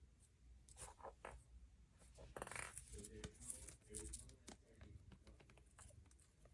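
Near silence: quiet room tone with faint scattered clicks and scratches, and a brief soft rustle about two and a half seconds in.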